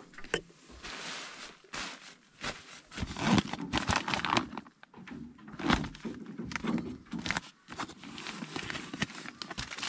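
Rustling and soft knocks of a hand rummaging in a backpack's open zip pocket among snack wrappers, with the bag shifting on a crinkly plastic ground sheet.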